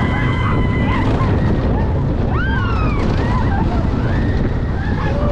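Wind buffeting the microphone and the rumble of the Slinky Dog Dash roller coaster train running at speed, with riders' whoops and cries rising and falling over it.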